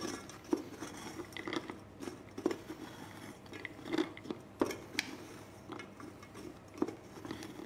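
Wooden spatula stirring sugar-coated nuts in a stainless saucepan, with irregular crunchy scrapes and clicks as the nuts tumble against the pan while their sugar coating caramelizes.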